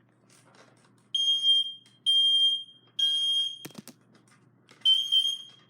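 Smoke detector sounding its test alarm: three loud, high-pitched beeps, a knock, then the beeping starts again near the end. The owner judges the detector's piezo sounder to be faulty.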